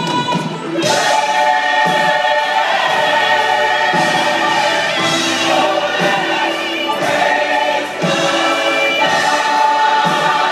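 Church choir singing a gospel song, several voices in harmony holding long notes.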